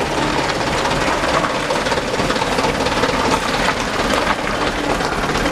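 Mitsubishi Fuso dump truck's diesel engine running steadily up close, with scrapes and clinks of shovels working gravel and asphalt over it.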